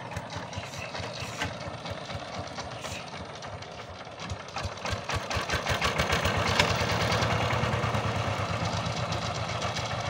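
A 12 hp single-cylinder diesel power tiller engine running with a rapid, even knocking beat. About halfway through it speeds up and gets louder as it pulls under load, blowing black smoke.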